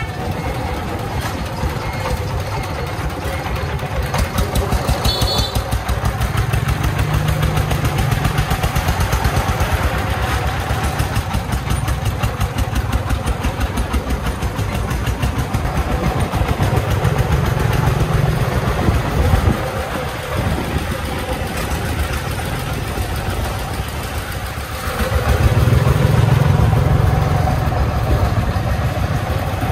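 Công nông farm truck's 24-horsepower diesel engine chugging steadily as it hauls a bed of gravel, its low rumble swelling louder three times as it pulls harder.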